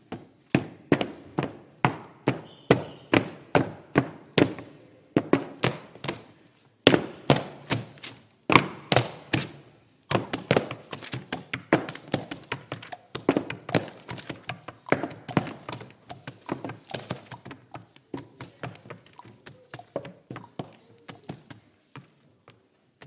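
Hardcover school atlases slapped with the hands and struck on a tabletop as rhythmic percussion, a steady beat of a few sharp knocks a second. Later the strikes grow quicker and softer amid pages being turned, thinning out just before the end.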